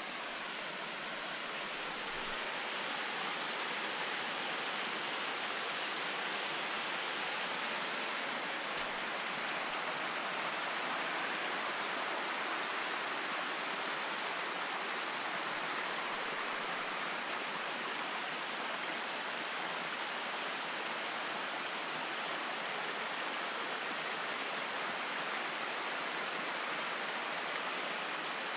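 Fast-flowing mountain stream rushing, a steady wash of water that grows a little louder over the first few seconds.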